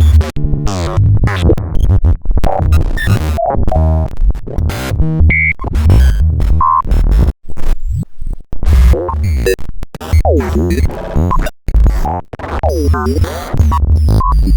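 A rapid string of digital glitch sound effects: choppy, stuttering electronic bursts with a heavy bass layer, cut off abruptly again and again. In the second half, two warbling tones sweep down and back up in pitch.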